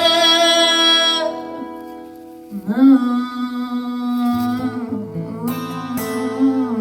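A woman singing long, held notes with vibrato over a strummed acoustic guitar, three drawn-out phrases with a short lull between the first two.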